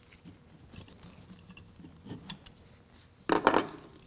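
Faint scraping and creaking of a T-handle Allen wrench tightening flathead bolts into a steel plate on an air spring, then a short loud clatter a little over three seconds in as the wrench is set down on the wooden bench and the assembly is handled.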